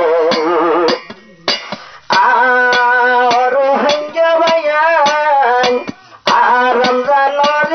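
Rohingya tarana song: a male voice singing with vibrato over plucked-string accompaniment and a beat. The music drops out briefly about a second in and again at about six seconds.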